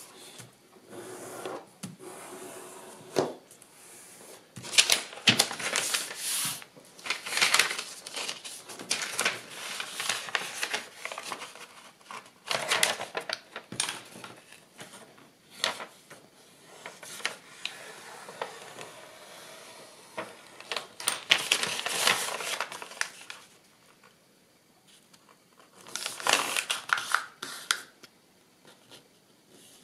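Kraft paper being handled, folded and creased by hand: irregular rustling and crinkling with sharp clicks, going quiet for a couple of short stretches near the end.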